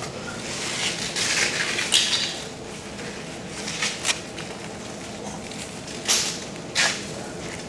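Tourniquet straps being pulled tight and adjusted on legs: short rasping rips of strap material. The longest comes about a second in and lasts about a second, with sharper single rips around four, six and seven seconds in.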